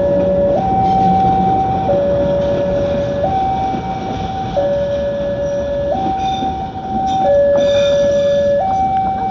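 Railway level-crossing warning alarm sounding an alternating high–low two-tone signal, switching pitch about every 1.4 seconds, over the noise of a passing train.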